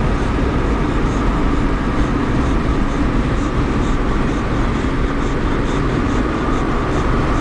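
Steady road and engine noise inside a moving car's cabin, a constant rumble heaviest in the low end.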